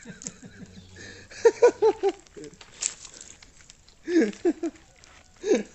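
Men laughing in two bursts of quick, short "ha-ha" syllables, with a shorter laugh near the end.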